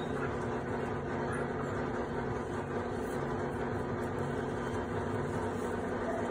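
A steady mechanical hum, like a fan or air-handling unit, with no change in level or pitch.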